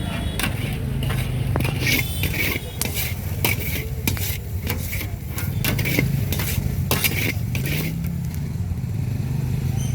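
A metal spoon scraping and clinking in a metal pan as a puffed-rice bhel mix is stirred and tossed, in many quick irregular strokes. Under it is a steady low engine hum from street traffic.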